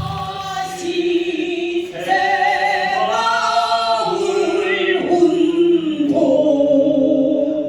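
Korean traditional sori singing: a voice holding long notes with vibrato, moving slowly from pitch to pitch, with no drum.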